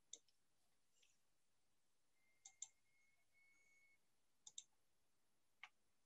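Soft computer mouse clicks in near silence: four clicks spaced a second or two apart, most of them doubled.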